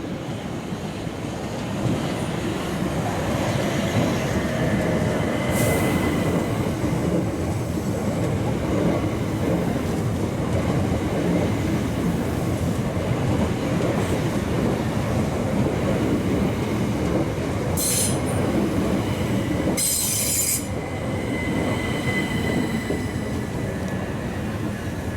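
Electric multiple-unit passenger train running along the platform, with a steady rumble of wheels on rail and thin high-pitched wheel squeal. The rumble grows louder about two seconds in, two short high bursts come about three-quarters of the way through, and then it eases off.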